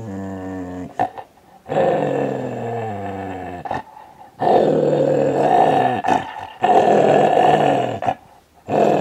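A dog growling over a piece of food it holds in its mouth as a hand reaches for it, a warning to keep it. The growls are long and low, in about five drawn-out bouts of a second or two each with short breaks between.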